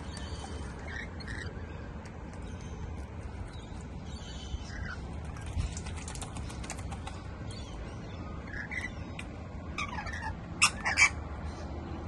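Rainbow lorikeets bathing in a small plastic tub of water: wings splashing, with short chattering calls and a couple of loud, shrill screeches near the end, over a steady low rumble.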